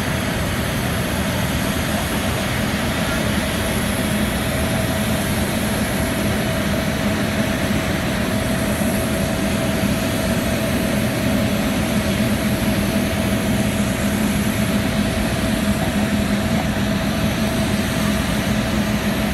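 Steady jet aircraft noise: a constant rushing hum with a fixed whine over it, unchanging throughout.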